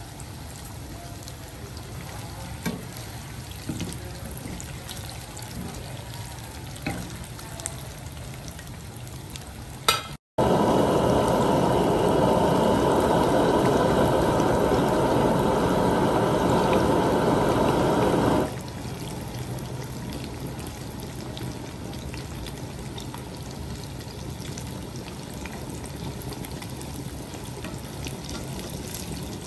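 Battered fish pieces deep-frying in a pan of oil: a steady sizzle and bubble with a few light clicks of a ladle and chopsticks against the pan. After a brief dropout about ten seconds in, the sizzle runs much louder for about eight seconds, cuts off suddenly, then goes back to a steady sizzle.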